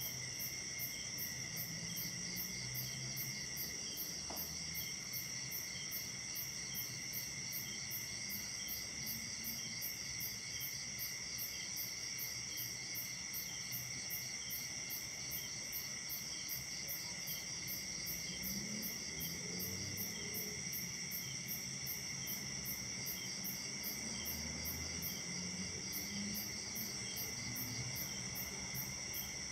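Night chorus of crickets and other insects: several steady high-pitched trills layered at different pitches, with one very high insect pulsing about twice a second.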